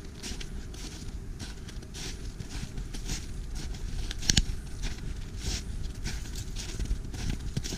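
Footsteps crunching in snow at a steady walking pace, about two steps a second, with one sharper, louder step about four seconds in.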